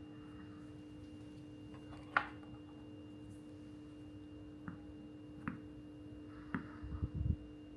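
A steady electrical hum, with a handful of light clicks and taps: the sharpest about two seconds in, three more spread through the middle, and a couple of soft low thumps near the end.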